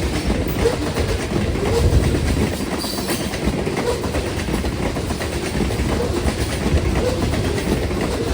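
A train rolling past on the track: the steady rumble and rattle of rail cars and their wheels, with no horn sounding.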